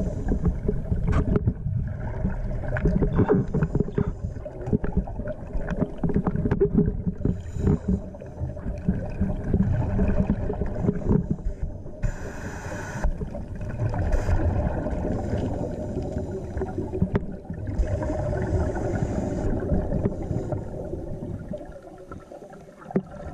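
Scuba divers breathing through their regulators, heard underwater: a steady rumble and gurgle of exhaled bubbles with clicks and knocks, and twice a stretch of hiss.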